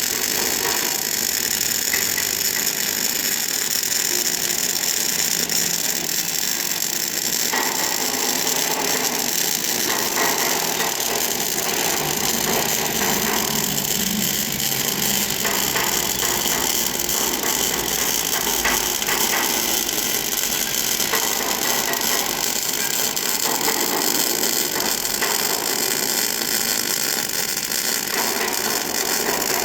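MIG welding arc crackling and sizzling steadily as a bead is laid, with slight shifts in tone along the way.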